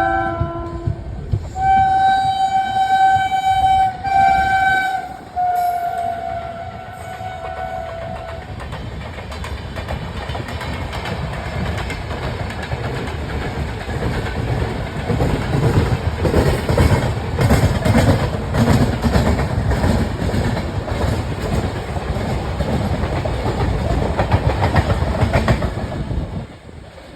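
Indian Railways train horns blowing four long blasts, the last one sliding slightly lower in pitch. Then the trains running at speed, wheels clattering over rail joints, louder about halfway through and dropping away near the end.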